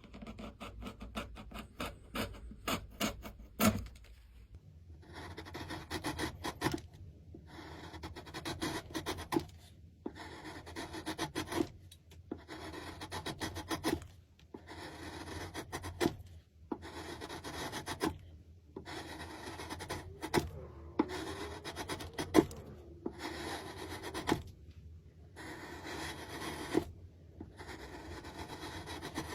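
Wood being worked by hand, a rough rubbing scrape with each stroke. For the first few seconds the strokes are quick and short. After that they come slower, each about a second long, with short pauses between.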